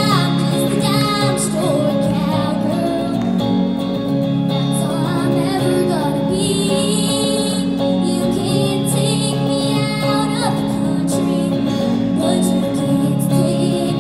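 A young girl singing into a microphone while strumming chords on an electric guitar.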